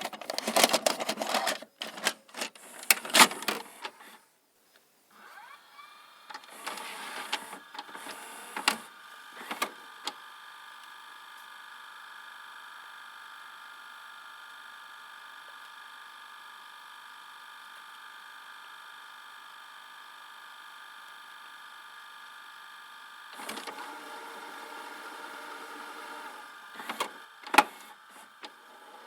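VHS videocassette recorder's tape mechanism: a rapid clatter of clicks and clunks, a short pause, then its motors whir with a few clunks and settle into a steady mechanical hum for about a dozen seconds. Near the end the mechanism clicks and shifts again, with two sharp clacks.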